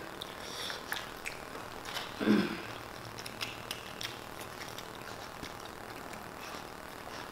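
Faint eating sounds: tortilla chips crunching and being chewed, with scattered small clicks and mouth noises, and a short low 'mm' from a voice about two seconds in.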